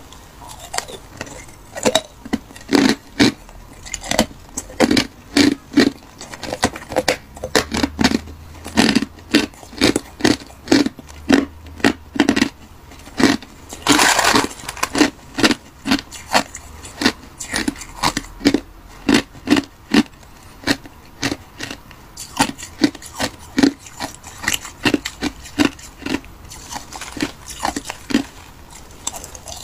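Hard crushed ice being crunched between the teeth close to the microphone, sharp bites about two a second. About halfway through, a metal spoon scrapes and rattles through the ice in a plastic tub.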